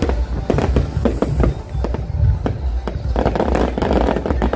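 Fireworks bursting in quick, uneven bangs and pops, with a dense crackle starting about three seconds in, over loud music with a heavy bass.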